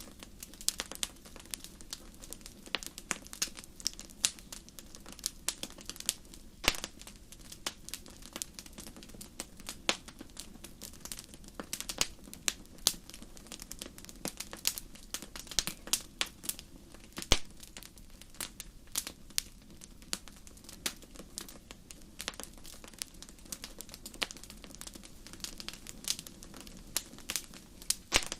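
Wood fire in a fireplace crackling: frequent, irregular sharp pops and snaps over a faint steady low background, with one louder pop about halfway through.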